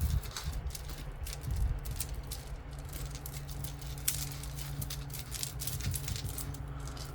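Jewelry being handled: beads and small metal pieces clicking and rattling in short, irregular taps, over a low steady hum.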